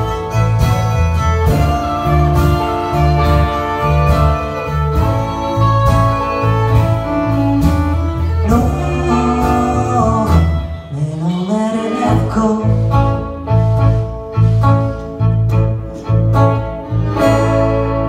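Live band playing an instrumental passage: fiddle, acoustic and electric guitars over drums and bass. Just past the middle the bass drops out briefly under a rising slide in pitch, and near the end the band settles on a held chord.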